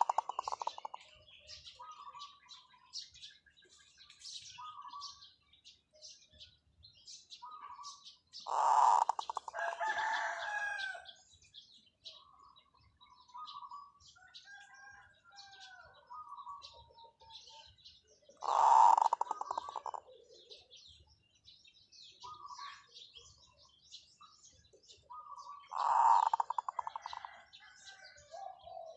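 Zebra dove cooing: four loud rapid, rattling coo phrases about every eight to ten seconds, with short soft coo notes in between.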